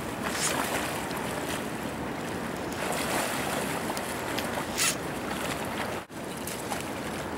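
Steady rushing of a flowing river, with a brief dropout about six seconds in.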